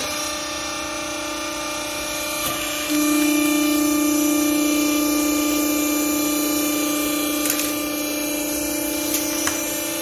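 TCM vertical hydraulic clothing baler's motor and hydraulic pump running with a steady hum that steps up louder about three seconds in, as the press plate lifts off the strapped bale. Two faint clicks come near the end.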